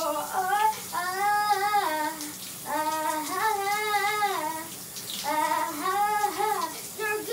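A child singing in the shower in three drawn-out phrases with held notes, over the steady hiss of running shower water.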